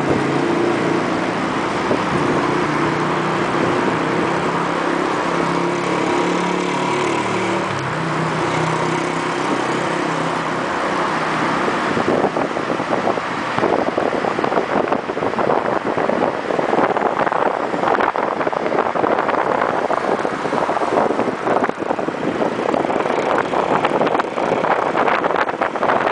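Motor vehicle driving slowly, heard from on board: engine and road noise, the engine note stepping up and down in pitch through the first ten seconds or so. From about twelve seconds in, wind buffets the microphone in rough gusts.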